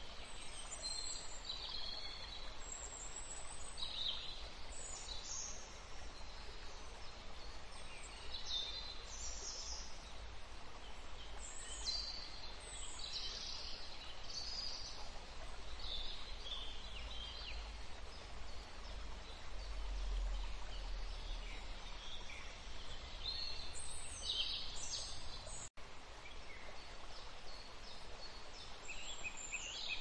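Small cage birds, canaries and Lady Gouldian finches, chirping in short, high, scattered calls over a steady background hiss. The sound cuts out for an instant near the end.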